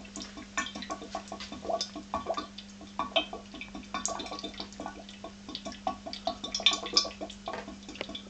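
Gas from a running HHO electrolysis cell, drawing about 20 amps, bubbling through water in the cell and its water trap: a continuous, irregular patter of small bubble pops over a steady low hum.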